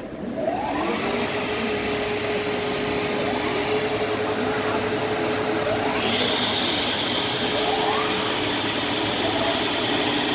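Woodtech FSM5020C four-sided moulder's spindle motors being switched on one after another, each winding up in pitch and settling into a steady machine whine. A higher steady whine joins about six seconds in.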